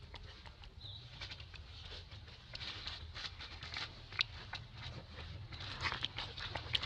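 Dry fallen leaves crackling and rustling as macaques shift on the leaf litter and a baby macaque handles the leaves, in irregular sharp crackles that grow busier in the second half.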